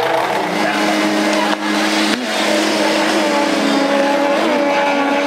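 Jet ski engines running flat out in a race: a loud, steady high-pitched drone whose pitch wavers briefly about two seconds in.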